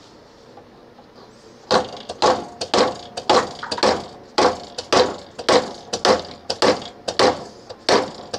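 Keyless drill chuck being pounded onto the drill press arbor's taper to seat it: a run of about a dozen sharp knocks, roughly two a second, starting a little under two seconds in.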